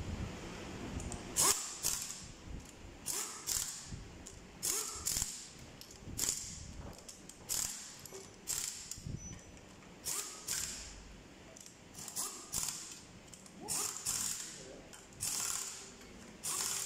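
Socket ratchet wrench clicking in short bursts, about one a second, as it turns the exhaust manifold bolts on an engine's cylinder head.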